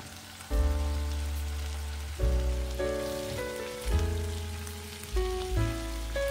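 Background music, a new chord with a deep bass note struck every second or two, over the steady sizzle of sliced onion and potatoes frying in a pan.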